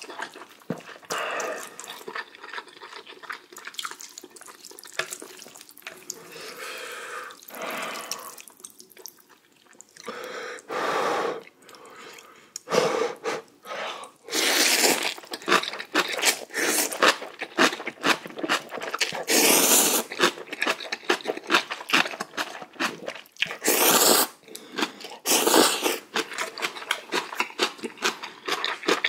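A person slurping instant ramen noodles out of spicy broth, with wet chewing and lip-smacking clicks in between. Slurps come repeatedly and grow louder and longer from about halfway on.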